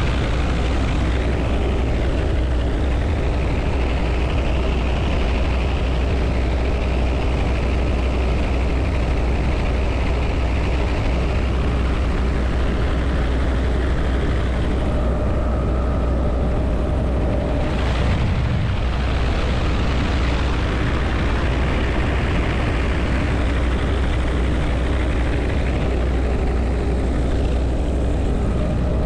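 Helicopter in flight, heard from inside its open-door cabin: steady rotor and engine noise with a low hum and a rushing hiss of air. The hiss thins for a few seconds past the middle, then returns.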